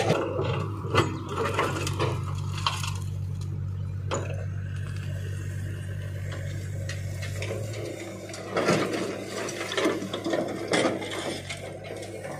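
Backhoe loader's diesel engine running steadily while its bucket handles large boulders, with scraping, knocks and rock clattering in the first few seconds and again about nine to eleven seconds in.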